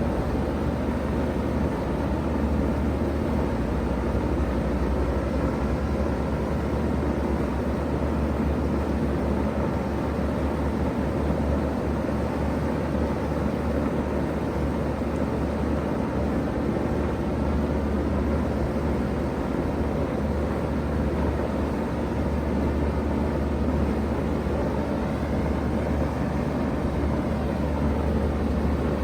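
2016 Bard 3-ton wall-hung heat pump running steadily in cooling mode: a steady low hum under an even rush of fan air.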